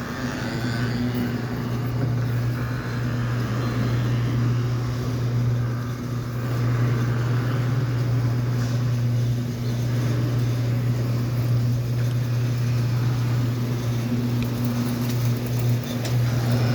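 An engine running steadily with a constant low drone, its pitch unchanging.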